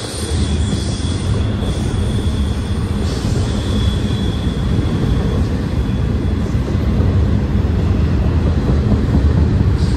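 Double-stack intermodal freight cars rolling past close by: a steady, heavy rumble of steel wheels on rail. A thin high whine rides over it and fades out about halfway through.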